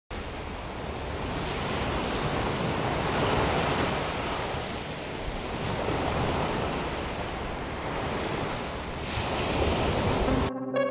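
Sea waves breaking and washing up a pebble beach, a steady surf that swells louder twice. Electronic keyboard music cuts in suddenly near the end.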